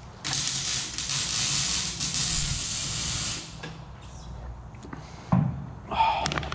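Welding arc hissing and crackling steadily for about three seconds as a steel roll cage is welded, stopping abruptly. A short loud thump follows about five seconds in.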